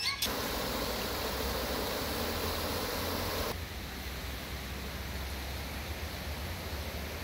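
Water pouring over a small concrete weir into a pool: a steady rushing. About three and a half seconds in it drops to a quieter, more distant rush.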